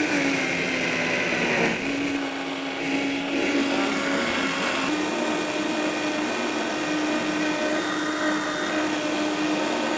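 High-powered countertop blender running continuously on a thick nut-based cheesecake filling while a tamper pushes the mix down into the blades; the motor's pitch dips and steps up a couple of times as the load shifts. The blender is working hard on a mixture thick enough that a little more water is needed.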